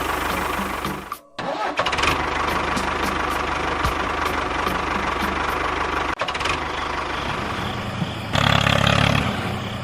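Engine running steadily with an even low hum. It cuts out briefly a little over a second in and turns louder for about a second near the end.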